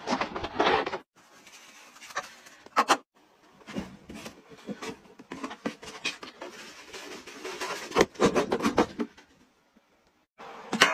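Arm & Hammer powder being scraped and shaken out of its cardboard box, with a plastic scoop rasping against the cardboard. The rubbing and scraping comes in irregular bursts, loudest at the start and again about eight seconds in.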